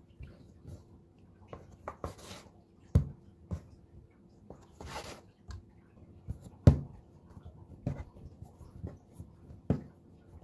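Hands dividing and shaping bread dough on a stone countertop: soft knocks as dough pieces are set down and pressed, with brushing and scraping between. The loudest knocks come about 3 and 6.5 seconds in.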